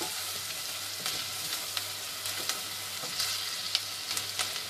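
Onions, garlic and ground spices sizzling in hot oil in a stainless steel pot as a spoon stirs them, with scattered clicks and scrapes of the spoon against the pot.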